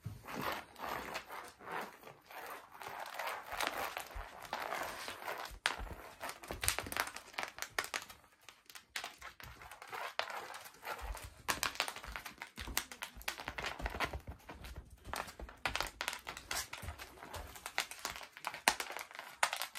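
A cat scrabbling and pouncing on tatami mats while chasing a wand toy: irregular scuffs, paw taps and scratchy rustles as its paws and the toy's string drag across the woven straw.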